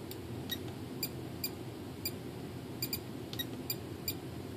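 Radio-control transmitter beeping as its buttons are worked: about ten short, high beeps at an uneven pace, over a steady low hum.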